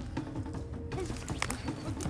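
Background music over scattered knocks and a low rumble from a horse hauling a felled log.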